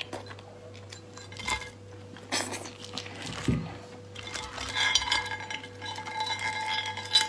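Raw langoustine shell being broken apart by hand over a ceramic plate: a few sharp clicks at first, then about two and a half seconds of dense crackling with clinks against the plate.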